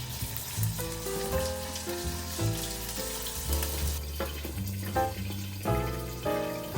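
Fish sizzling as it fries in oil in a pan, under background music with a melody and bass line.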